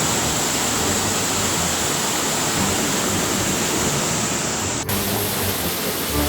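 Loud, steady rush of floodwater, a dense even roar of flowing water. It changes abruptly a little under five seconds in, where the footage cuts to another noisy water scene.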